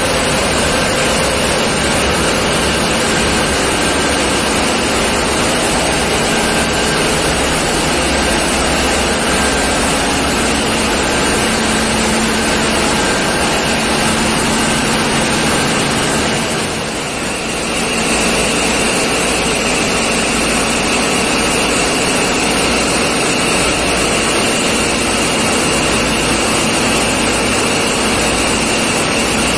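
Diesel engines in a tugboat engine room running steadily: a loud, constant machinery din with a faint steady whine above it, dipping briefly about halfway through.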